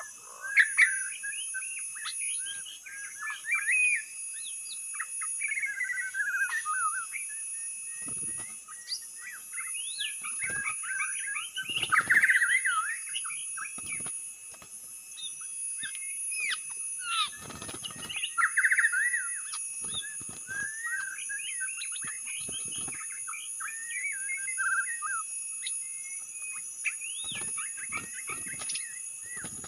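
White-rumped shama (murai batu) singing a rapid, varied, unbroken run of whistles and chirps: a lure song used to draw in other shamas.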